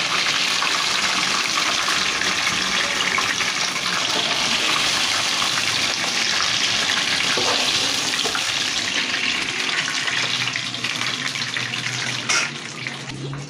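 Hot oil sizzling steadily in a frying pan as fried chicken pieces are lifted out with a slotted spoon. A sharp clack comes near the end, and the sizzle grows quieter after it.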